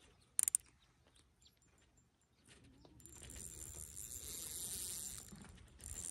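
A couple of sharp clicks about half a second in, then from about three seconds a steady hissing buzz from the spinning reel as a small trout is played on light line, breaking off briefly near the end and starting again.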